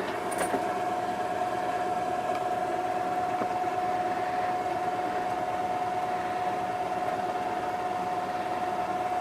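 Steady mechanical hum with a constant whine, from a machine running in the room.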